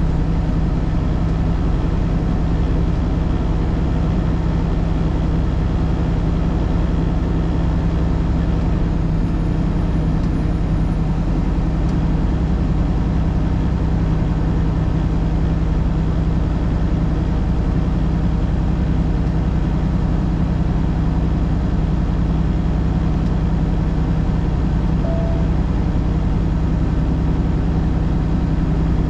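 A vehicle driving at a steady pace: a constant drone of engine and road noise with a strong low hum.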